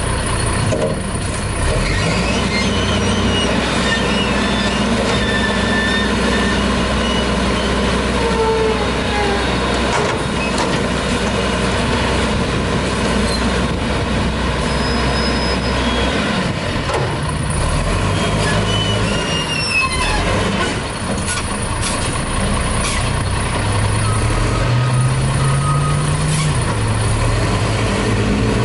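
Heil front-loader garbage truck with a WhiteGMC cab running its engine to drive the hydraulic forks as a trash bin is lifted over the cab and dumped, with several knocks and clanks along the way. Near the end the engine pitch rises as the truck pulls away.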